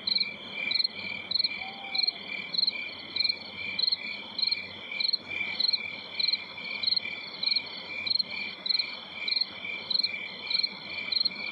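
Crickets chirping at night: a steady high trill with louder, regularly pulsed chirps about two a second.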